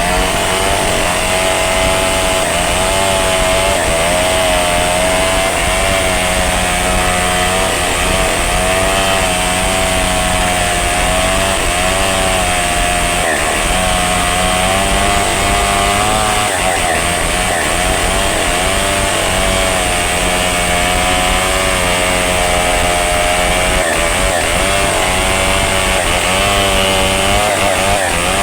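Two-stroke chainsaw running hard and cutting through the trunk of a rain tree, its engine pitch wavering up and down as the chain bites under changing load.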